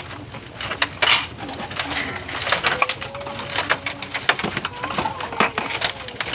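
Racing pigeons cooing in their loft, with several drawn-out, gliding coos. Many sharp clicks and knocks run through it, and there is a short rustling burst about a second in.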